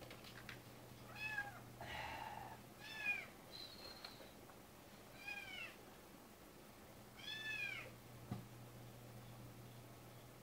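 A cat meowing: four short meows, each rising and falling in pitch, about two seconds apart, with a sharp click near the end.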